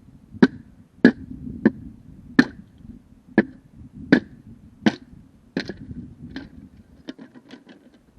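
Bamboo being split with a six-way bamboo splitter: about nine sharp cracking knocks at an even pace, each a little under a second apart, then a quick run of lighter cracks near the end.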